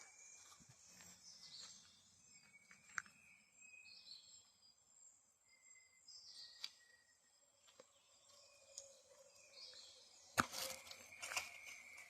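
Faint rainforest ambience: scattered distant bird chirps and whistles over a low insect background, with a few sharp clicks and a louder burst of crackling clicks and rustling near the end.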